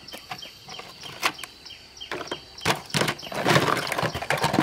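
Plastic toy cars clicking and knocking against each other and a plastic basket as they are handled. About three and a half seconds in comes a denser clatter, as one is pulled out of the basket.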